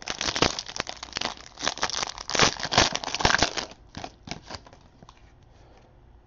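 Foil trading-card pack wrapper crinkling and tearing as it is slit open and peeled off the cards, dying away to a few rustles after about four seconds.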